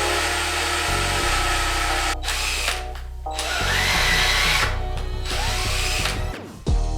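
Power drill driving a hole saw through sheet steel, cutting in runs with brief pauses and a wavering pitch partway through, over background music with a steady bass line.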